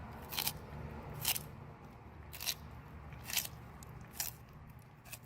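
An animal chewing something crunchy in its mouth: six sharp crunches, about one a second.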